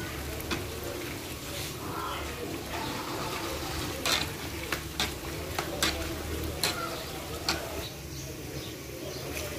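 Gulab jamun dough balls deep-frying in a large wok of oil, a steady bubbling sizzle, while a metal slotted spoon is stirred through them, knocking sharply against the pan about nine times.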